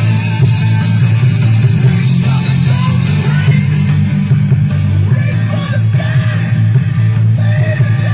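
Loud rock music with guitar and singing and a heavy, steady low end.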